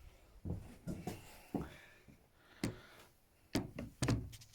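Knocks and clunks of hand work on a scooter being stripped: about six sharp knocks over four seconds, with quiet between.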